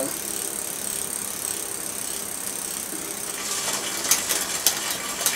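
Mountain bike drivetrain spun by hand while the rear gears are being adjusted: the chain runs through the derailleur with a steady whir, and the freewheel's pawls tick. From about three and a half seconds in, the clicking gets busier, with a few sharp clicks near the end.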